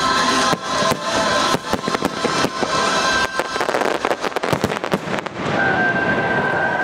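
Fireworks bursting over loud show music: repeated sharp bangs that thicken into a rapid crackling volley about four seconds in, then stop about five seconds in while the music plays on.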